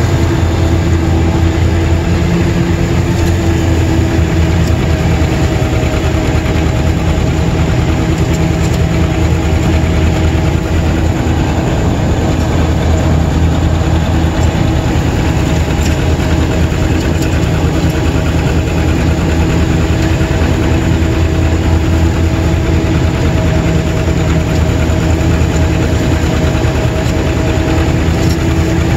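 John Deere 630's two-cylinder engine running steadily under load while driving a finish mower, heard loud and close from the driver's seat.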